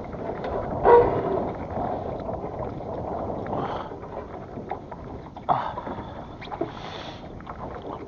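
Anchor weights being hauled up by rope into a small boat, with knocks against the hull and water sounds; a loud ringing knock about a second in, and a few lighter knocks later.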